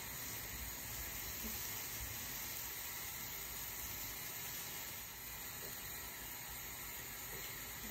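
Steady hiss of a thin sheet of rougag dough cooking on a hot pan.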